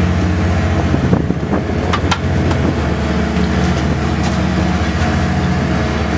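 Marine diesel engines running steadily alongside the boat, an even low drone, with a couple of light knocks about one and two seconds in.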